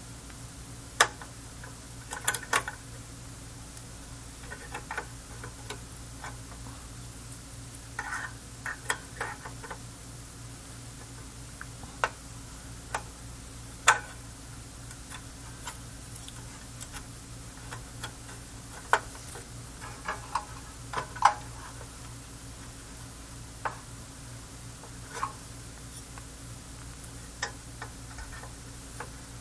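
Irregular clicks and clinks of hand tools and small metal hardware being handled, a few sharp knocks among lighter taps, over a steady low hum.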